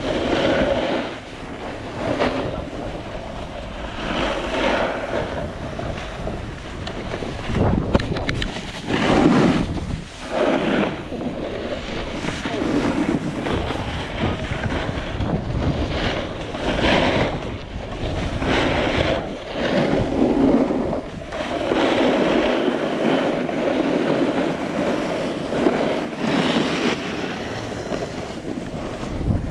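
Skis scraping and carving on hard-packed, tracked snow, the noise swelling with each turn every second or two, with wind buffeting the microphone.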